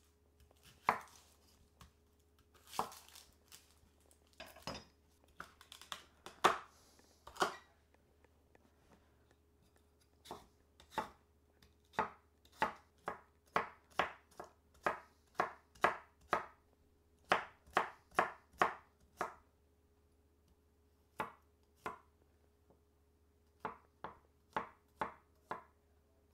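Chef's knife chopping vegetables on a wooden cutting board: scattered cuts at first, then a steady run of knocks about two a second, then a few more cuts near the end.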